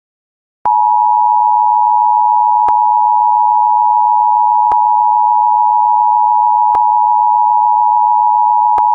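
Emergency Alert System two-tone attention signal (853 and 960 Hz sounded together), a steady loud tone that starts under a second in after a brief silence, announcing the tornado warning that follows. A faint tick recurs about every two seconds.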